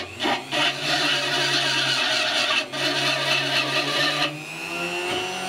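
A Dremel rotary tool with a small rotary burr runs at a steady whine while the burr grinds away excess material from the bracket that holds the laser tube, with a rasping cut broken by brief lifts. About four seconds in the burr comes off the work and the tool whines on freely.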